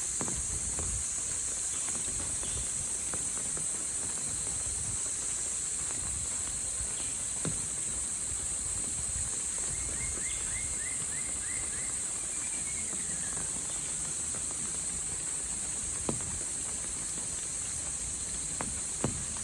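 A steady high-pitched insect chorus. About ten seconds in comes a short run of about seven quick chirps, and a couple of footsteps tap near the end.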